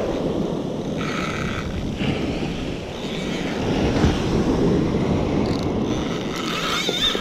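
Wind blowing across the microphone over the steady wash of small waves breaking on a sandy beach.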